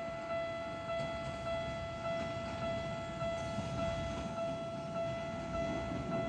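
Electronic railway warning alarm ringing as a steady, repeating two-beats-a-second chime, over the low rumble of an approaching train.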